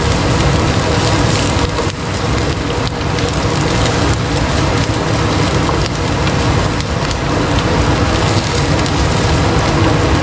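Spice paste of shallots, garlic, lemongrass, ginger, chilli and turmeric sizzling and crackling steadily in hot oil, being fried until fragrant.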